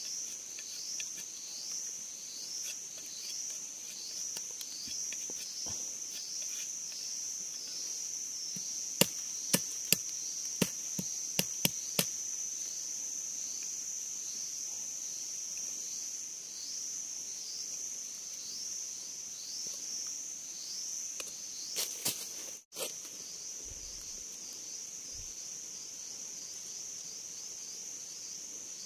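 Steady high insect song pulsing about twice a second. About nine seconds in comes a quick run of around seven sharp cuts, with two more a little after twenty seconds: a knife chopping a bamboo strip.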